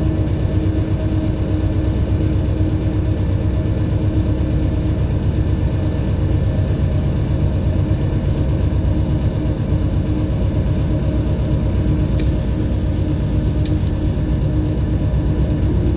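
Diesel locomotive engine running steadily: a low, even rumble with a fast throb. A faint high-pitched whine joins about twelve seconds in and stops two seconds later.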